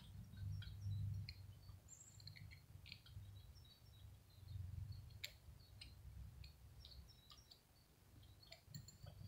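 Faint small clicks of a precision screwdriver tightening a retainer screw into the edge of a tensegrity table's top plate, with a few faint high chirps over a low rumble.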